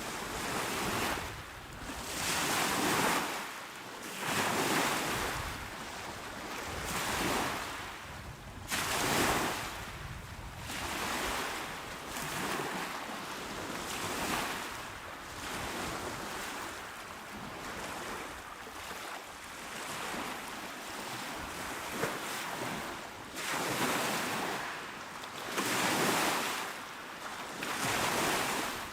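Calm sea waves washing onto the shore, each one swelling and fading every two seconds or so, with a hiss of water.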